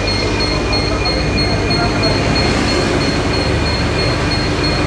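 Electric tram running on rails: a steady rumble of wheels on track with a constant electric hum and a high, pulsing whine.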